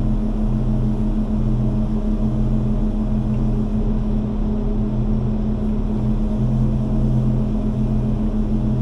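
A heavy engine running steadily at constant speed, a low hum with a deeper throb that swells and fades every second or two.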